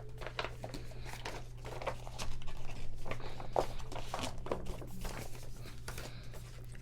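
Rustling and crinkling of a large paper poster being handled: irregular scratchy crackles that grow louder and busier about two seconds in.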